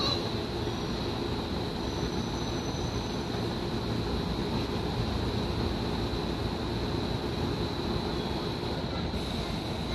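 Electric commuter train standing at the platform: a steady hum and hiss from the stopped train and the station, with a thin high tone held throughout.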